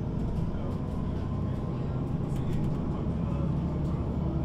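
MAN NG 313 articulated city bus running steadily: constant diesel engine and drivetrain noise, low-pitched and even.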